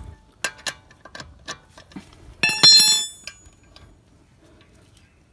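Steel lug wrench and bar clinking at a car wheel: a few light metallic clicks, then one loud ringing clang about two and a half seconds in.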